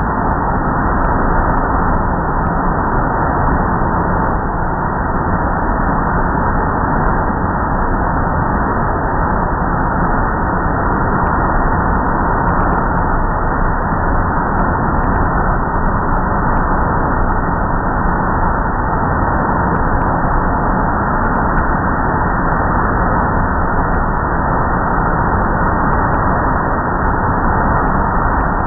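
Automatic car wash air-dryer blowers running: a loud, steady rush of air with a faint steady hum.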